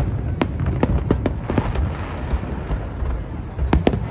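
Aerial fireworks display: shells bursting over a continuous low rumble. Sharp bangs come several to a second through the first second and a half, thin out in the middle, and return as a quick cluster of cracks near the end.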